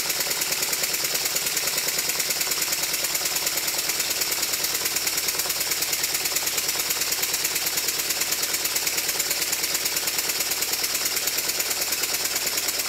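Stuart triple expansion model steam engine running steadily on compressed air: a rapid, even chuff of exhaust beats over a constant hiss. It is run in and running smoothly.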